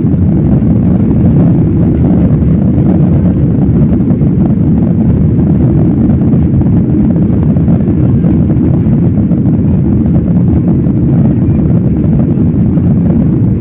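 Airplane taking off: engines at take-off power with the rush of air, a loud, steady low rumble.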